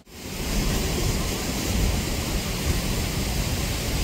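Rain-swollen mountain torrent rushing over boulders, a steady noise of fast water that cuts in abruptly at the start.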